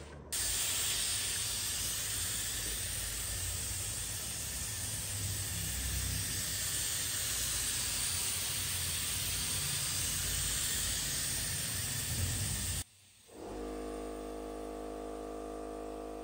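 Handheld spray gun hissing steadily as it mists oil-based polyurethane topcoat onto a wood surface, then cutting off abruptly about thirteen seconds in.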